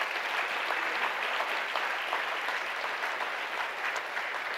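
Audience applauding, a steady patter of many hands clapping that eases off slightly toward the end.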